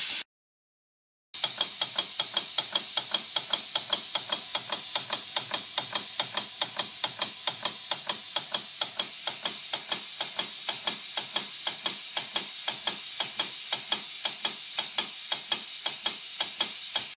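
Air compressor of a 7¼-inch live-steam SNCB Type 5 locomotive running, an even mechanical clacking of about four to five strokes a second, starting about a second in. It is pumping up the compressed-air pressure.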